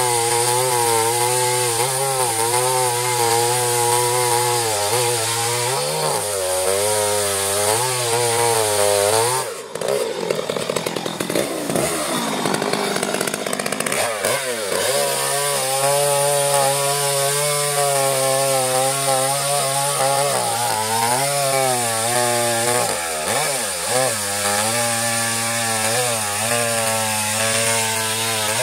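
Two-stroke chainsaw running under load, cutting into a coconut palm trunk. Its engine pitch dips and recovers as the chain bites. About ten seconds in the note drops briefly, then runs higher and unsteady for a few seconds before settling back into the cut.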